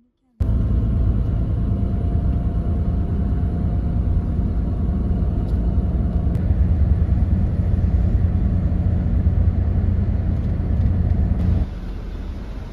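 Bus running, a steady low rumble of engine and road noise. It starts suddenly and drops to a lower level near the end.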